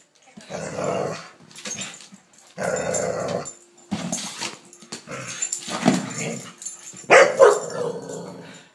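A dog growling and barking in playful, excited bouts at a lampshade, five outbursts with short pauses between them, the loudest about seven seconds in.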